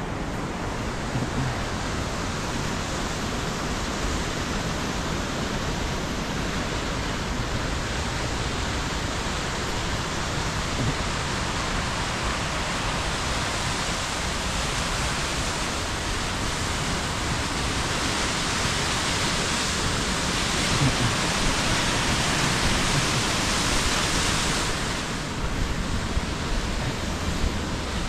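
Steady rushing of a waterfall cascading over rock, swelling a little toward the middle and easing off a few seconds before the end.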